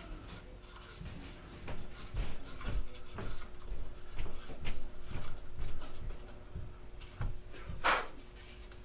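Plastic housing parts and hand tools being handled during a leaf blower teardown: irregular small clicks, knocks and rubbing, with one louder sharp scrape near the end.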